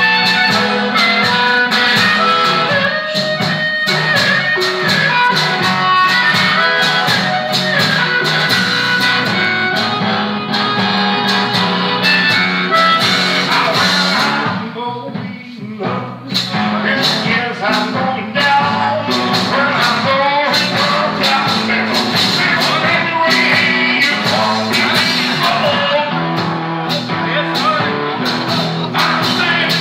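Live blues played on an electric guitar through a small amplifier, over a steady stomped bass-drum beat. The playing drops away briefly about halfway through, then picks back up.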